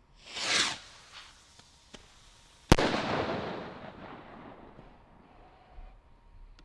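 A 13 g firework rocket launching with a brief rushing whoosh, then about two seconds later a sharp, loud bang as it bursts, the report echoing away over the next couple of seconds.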